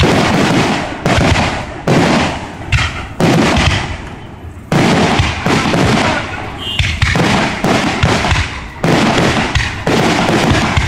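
Aerial fireworks bursting overhead: loud bangs about once a second, each trailing off, with a brief lull about four seconds in.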